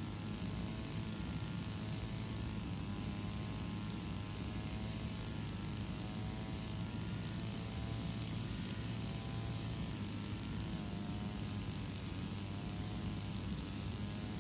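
Engine-driven brush cutter running steadily while cutting grass, its engine pitch wavering slightly up and down as it works.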